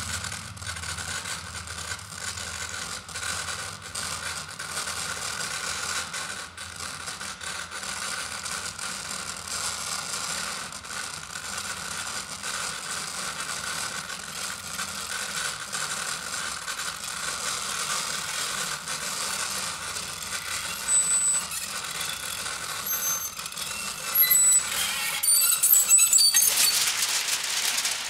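Amplified experimental percussion: a steady buzzing, crackling texture from a vibra bullet buzzing against a large woodblock and an amplified Almglocke worked by hand. Short high electronic beeps come in about twenty seconds in, and near the end large sheets of paper are ripped in a loud burst of tearing and crackle.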